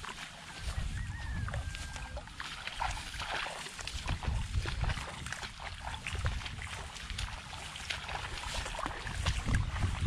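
Hand sickles cutting ripe rice stalks in a wet paddy: a scatter of crisp rustling and snapping. Wind rumbles on the microphone underneath, swelling and fading, and a short high call sounds about a second in.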